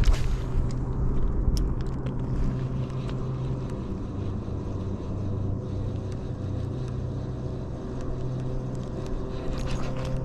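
A motor hums steadily at a constant pitch over a low rumble, with a few faint clicks about a second and a half in.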